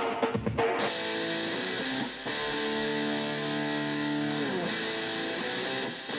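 Background music: guitar chords held for long stretches, the whole chord sliding down in pitch about four and a half seconds in.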